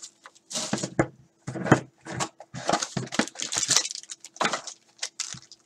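Clear plastic shrink wrap being torn off a trading card box and crinkled in the hands, in quick irregular crackles.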